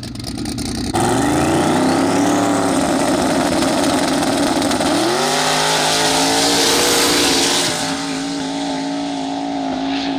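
Drag-racing cars' engines at high revs over a wide hiss of tyre noise. About five seconds in the engine pitch climbs as the cars launch off the line, then the note eases slightly as they pull away.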